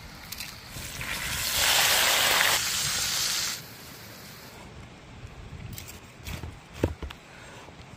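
Steak sizzling in hot butter in a pan, loud for about two seconds, then cut off. Near the end come a few clicks and one sharp knock as a cleaver slices through the steak onto a wooden board.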